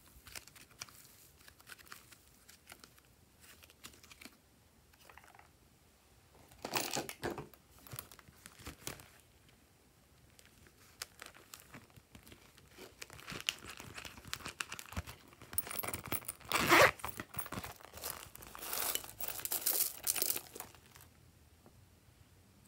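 Crinkling and rustling of a holographic vinyl pouch being handled, in short bursts, most of them in the second half.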